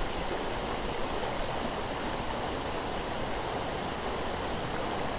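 Steady rush of a shallow river current running over rocks.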